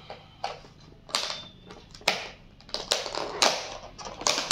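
Clear plastic snap-on lid being pried off a black plastic takeaway compartment tray: a run of sharp crackles and clicks of thin, stiff plastic, starting about a second in and coming faster and louder near the end.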